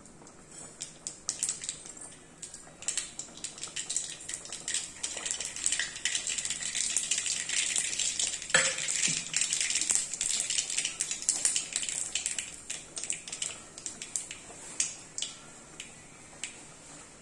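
Whole spice seeds crackling and spitting in hot oil in an iron kadai, a rapid patter of pops over a sizzle. The popping is thickest in the middle, with one louder pop about halfway through, and it thins out near the end.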